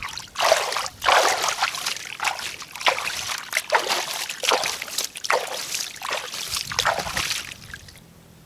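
Hands scooping and splashing shallow muddy water, a quick uneven run of splashes that stops near the end.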